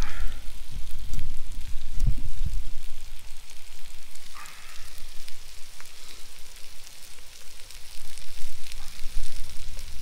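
Potato wedges sizzling and crackling in hot oil in a pot over a camp burner, with scattered small clicks and a low rumble underneath.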